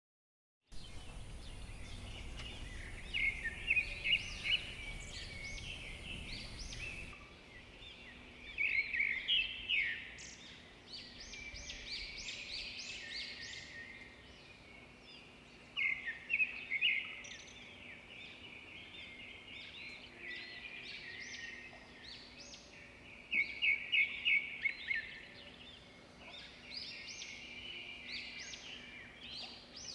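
Birds chirping in repeated bursts of quick, high chattering notes, with a faint steady hum underneath.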